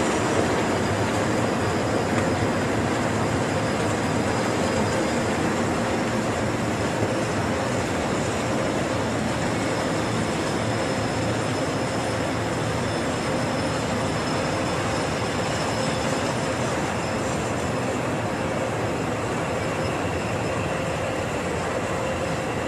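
Freight train of loaded double-deck car-transporter wagons rolling steadily past, wheels on rail, with a few thin steady tones over the rolling noise. It fades a little near the end.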